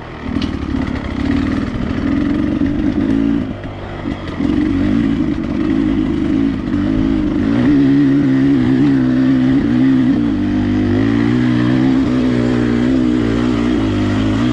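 Dirt bike engine running hard on a climb. The throttle eases briefly right at the start and again about four seconds in, then the engine holds a steady note whose pitch wavers slightly with the throttle.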